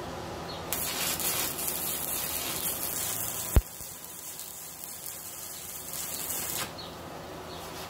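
Stick welding arc burning a 7018 3/32 electrode at about 90 amps from a Yeswelder MIG-205DS inverter welder: a steady hiss that starts just under a second in and breaks off near the end, with one sharp pop about halfway through.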